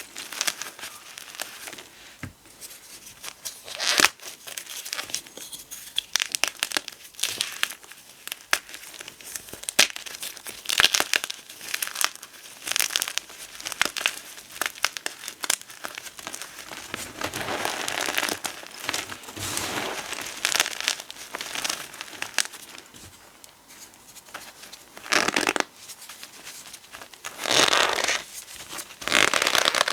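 Blocks of gym chalk and potato flour being crushed and crumbled, giving irregular bursts of crackly crunching and crumbling.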